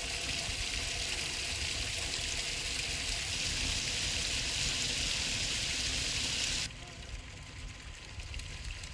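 Water gushing from a pipe into a large metal pot while chicken pieces are washed in it by hand: a steady rushing hiss that cuts off suddenly about seven seconds in.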